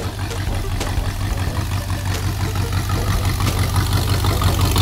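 Rat rod's engine running at low speed as the car rolls slowly toward and past, a steady low rumble that gets gradually louder as it nears.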